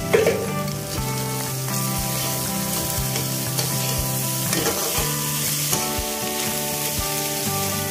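Chopped vegetables sizzling in a hot steel kadai as a spoon stirs and tosses them, lightly roasting them toward brown. Background music with a soft beat about once a second plays throughout.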